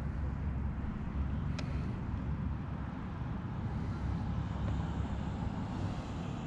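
Steady low rumble of outdoor background noise, with one faint click about a second and a half in.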